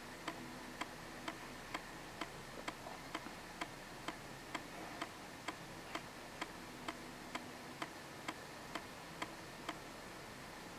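Steady, evenly spaced mechanical ticking, about two ticks a second, over faint room hiss.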